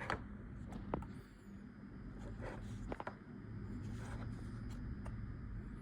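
A few light plastic clicks and handling noises, typical of a robot vacuum's filter and dust bin being taken out and handled, over a low steady hum.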